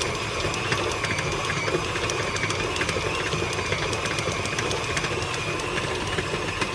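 Electric tilt-head stand mixer running steadily, its flat beater churning stiff, crumbly cookie dough in a steel bowl: a motor hum with a slightly wavering high whine and a fast patter of light ticks.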